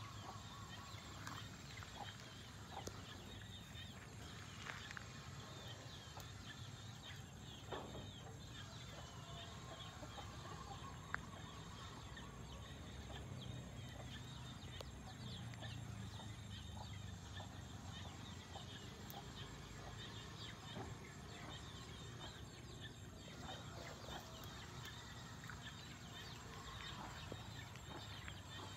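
Faint outdoor ambience: birds calling, with many short, high chirps over a steady low hum.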